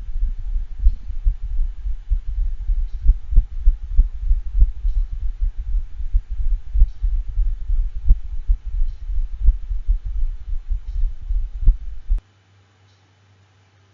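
Stethoscope recording of a St. Bernard's heart in atrial fibrillation from dilated cardiomyopathy with congestive heart failure: fast, irregularly irregular heartbeats, with stronger beats at uneven gaps. The recording cuts off suddenly about twelve seconds in.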